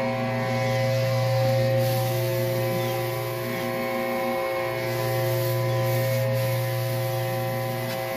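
A 2000 PSI electric pressure washer runs with a steady hum, feeding a Mi-T-M rotating-nozzle surface cleaner that sprays over concrete with a hiss. Its lower drone drops out for about a second and a half near the middle, then comes back.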